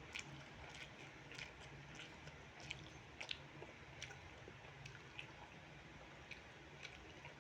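Close-miked chewing of fried rice with chicken liver and gizzard: faint, wet mouth clicks and smacks at irregular intervals.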